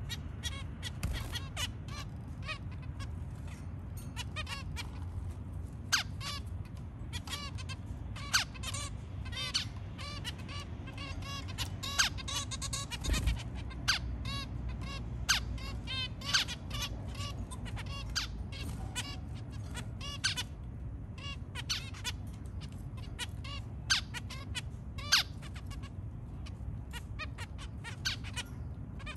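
Zebra finches, adults and young birds of a family, calling over and over with short repeated calls, some much louder than the rest, over a steady low hum.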